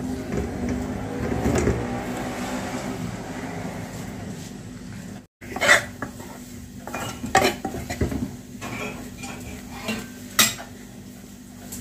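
Metal ladle stirring and scraping dry-roasting gram flour (besan) for zunka in a metal pan, with the ladle clinking against the pan. The first few seconds are a continuous gritty scraping. After a brief dropout about five seconds in, it turns to separate scrapes and a few sharp clinks.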